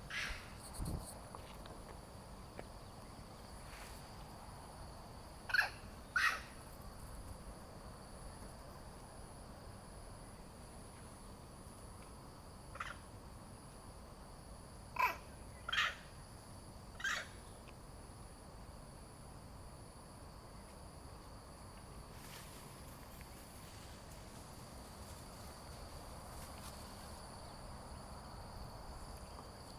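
Monkeys giving short, sharp calls: two close together, a faint one, then three more in quick succession. A steady high insect drone runs under them.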